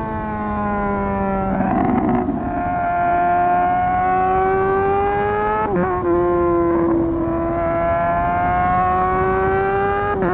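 Motorcycle engine running under way, its pitch slowly climbing and then dropping sharply twice, about six seconds in and again at the end, as gears are shifted up.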